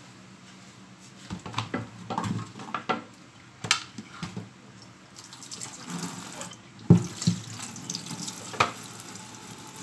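Wooden chopping board knocking and clattering as it is handled, then a tap running as it is rinsed under the water, with a couple of sharp knocks of the board against the sink.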